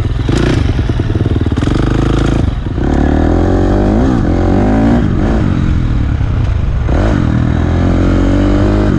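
KTM SX-F 350 four-stroke dirt bike engine under way, revving up and down as the rider works the throttle. The revs drop briefly about two and a half seconds in and again about seven seconds in, then climb again.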